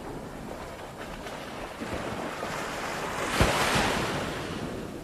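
Ocean surf on a beach: steady rushing water, with one wave swelling in, loudest about three and a half seconds in, then washing back down.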